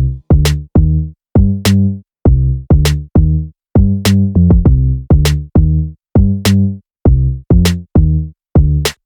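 Background electronic music with a drum-machine beat: short, choppy bass-heavy notes broken by brief silences, with a sharp crack about every second and a bit.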